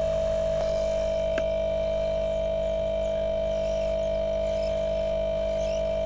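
Steady electrical hum from electronics repair bench equipment: one strong high steady tone over several fainter steady tones and a low hum, unchanging throughout, with a faint tick about a second and a half in.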